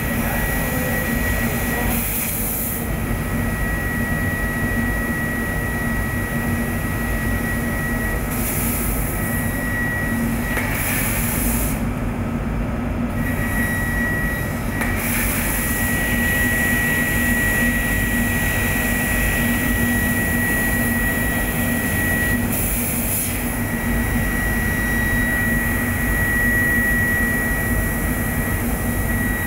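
Amada CNC laser cutter running while it cuts plywood parts: a steady machine rumble and hum under a high whine that cuts out and comes back several times, with short bursts of hissing air now and then.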